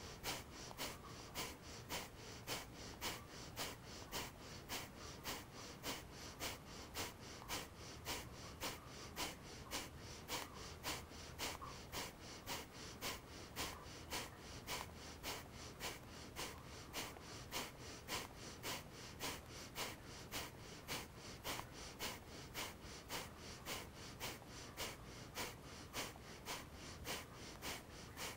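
Kapalabhati breathing: rapid, forceful exhales through the nose, pumped from the belly in a steady rhythm of about two a second, each a short sharp puff of air.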